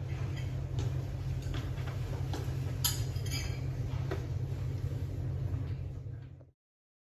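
Light clinks and taps, as of cups or dishes being handled, over a low steady hum. The sound fades and cuts to silence about six and a half seconds in.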